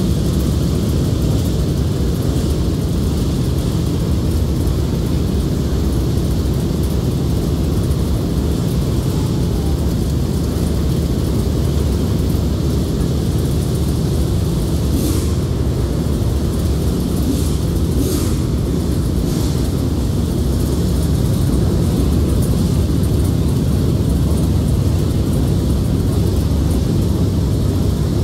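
Dirt late model race car's V8 engine idling steadily with a deep, unbroken rumble, run for a warm-up heat cycle.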